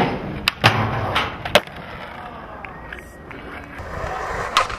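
Skateboard clacks and landings: several sharp board impacts in the first second and a half, then wheels rolling on pavement, with another clack near the end.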